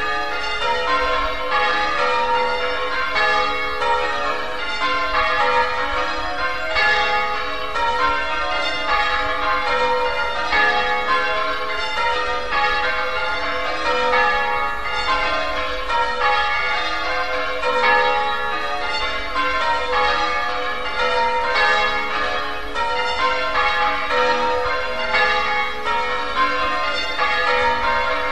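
St Winnow church bells ringing, the bells striking one after another in a steady, even stream, their tones overlapping and ringing on.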